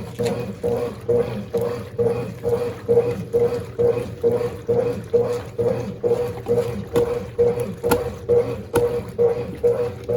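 Mondial Baby BLK20 washing machine agitating a load of dark clothes in water, its motor and agitator churning back and forth in a steady rhythm of about two to three strokes a second over a low hum.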